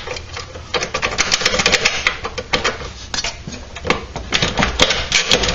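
Irregular metallic clicking and clinking of steel bolts, washers and spacers being handled and fitted under a small engine's mount.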